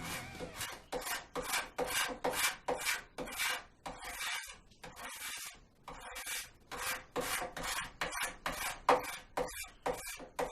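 Hand scraper, a putty knife reworked into a scraper, being drawn in quick repeated strokes over a guitar body's binding to level it flush, about two or three strokes a second.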